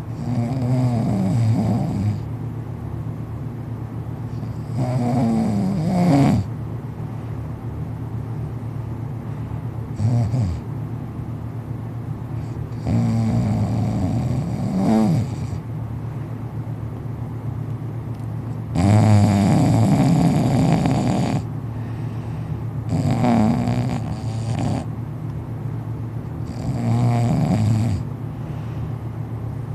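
A sleeping man snoring loud, about seven snores roughly every four seconds, some long and drawn out, some short, several sliding up or down in pitch. Under them runs a steady low hum.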